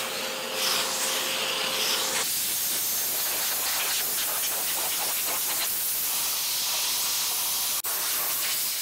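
A shop vacuum runs with a steady whine and cuts off about two seconds in. A compressed-air blow gun then hisses steadily as it blows sawdust out of the CNC's ball screw, with one brief break near the end.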